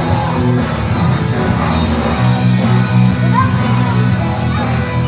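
Loud background music with sustained bass notes and some singing.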